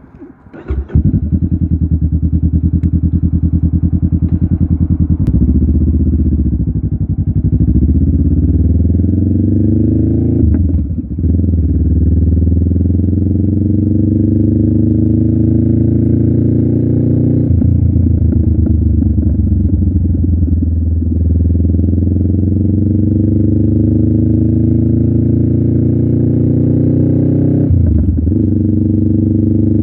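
Honda Rebel 500's parallel-twin engine running through a Vance & Hines aftermarket muffler. The engine comes in about a second in, then its pitch climbs slowly and drops sharply three times, a pattern that fits shifting up through the gears.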